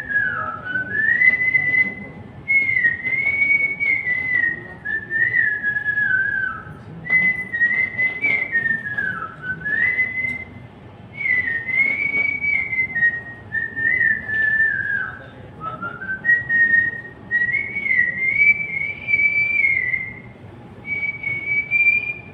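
A man whistling a song melody: one clear tone that glides up and down in phrases, with short breaks for breath between them.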